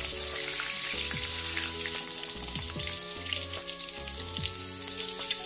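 Small anchovies frying in hot oil in a wok, fried until crisp: a steady sizzle with scattered crackles. Soft background music with held notes plays underneath.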